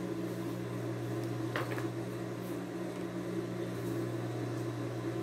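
Steady low electric motor hum, with a few faint snips of scissors trimming fabric batting.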